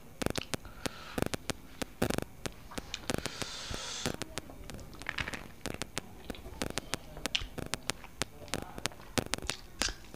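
Fingers scraping and pressing rice together on a banana leaf: many irregular sharp clicks and crackles from the leaf, with a scratchy rustle a few seconds in.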